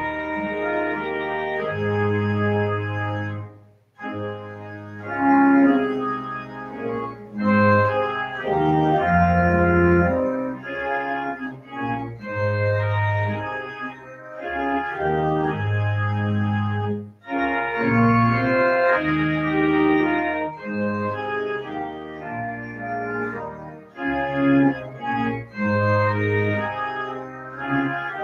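Organ music: held chords with long sustained bass notes and moving upper voices, stopping briefly about four seconds in before going on.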